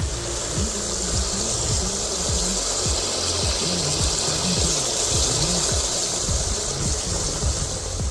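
Steady rush of running water, with music playing quietly underneath.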